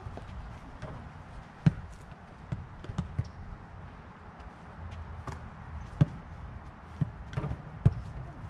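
Basketballs bouncing on bare dirt: a string of about nine irregular thumps, some single and some in quick pairs.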